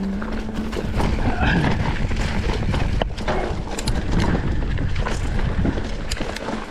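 Mountain bike clattering over a rough dirt trail: dense rattling and knocking of the bike and tyres over rocks and roots, with the noise of the ride.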